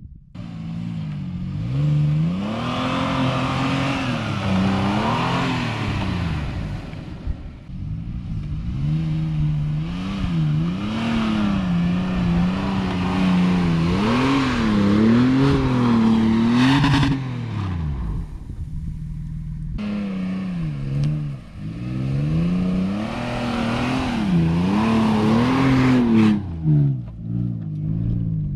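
Toyota Prado 4x4's engine revving up and down over and over, its pitch repeatedly rising and falling as the throttle is worked, twice falling away briefly before picking up again.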